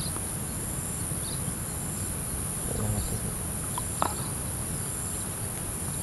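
Insects shrilling steadily at a high pitch, with a few faint short chirps, one sharper about four seconds in, over a low rumble.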